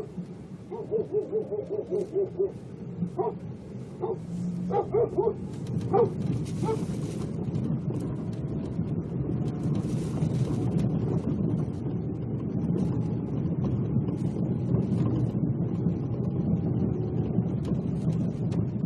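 A quick run of short high-pitched squeals, then a few separate yelps, in the first six seconds. After that, a Lada Vesta on the move: steady low road and tyre rumble.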